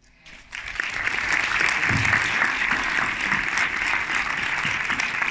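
Audience applauding: clapping begins about half a second in, swells within a second and keeps up steadily.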